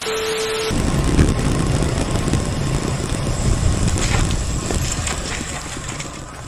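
A brief static hiss with a steady beep, then a loud rush of wind buffeting the microphone of a camera on a road bike descending at speed. The rush slowly eases toward the end.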